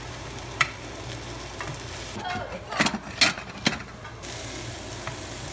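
Eggplant slices frying in oil in a frying pan, sizzling steadily as they are stirred with a wooden spatula. A few sharp clicks and knocks come about three to four seconds in.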